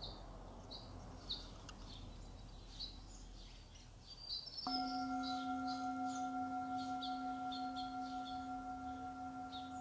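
Birds chirp in the background. About halfway through, a singing bowl is struck and rings on with a steady low tone and several higher overtones, the loudest sound from then on.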